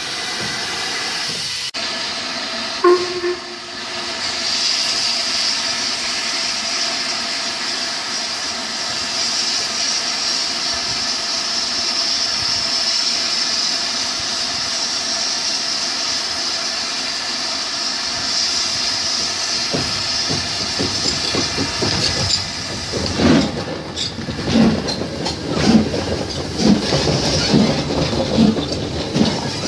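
LMS Black 5 two-cylinder 4-6-0 steam locomotive moving slowly with its cylinder drain cocks open, giving a steady hiss of steam; a short tone sounds about three seconds in. Near the end, as the engine passes close, a slow rhythmic beat comes in at about one a second.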